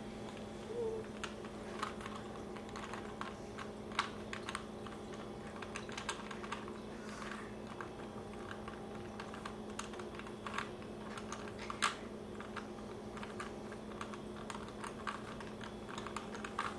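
3x3 Rubik's cubes being scrambled by hand: plastic layers turning with quick, irregular clicks, over a steady low hum.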